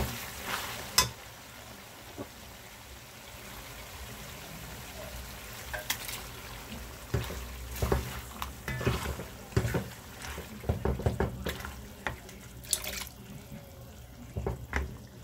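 Chicken, onion and garlic frying in a metal pot with a steady sizzle. From about six seconds in, a spoon repeatedly knocks and scrapes against the pot as canned whole tomatoes are tipped in and stirred, with wet plopping and splashing.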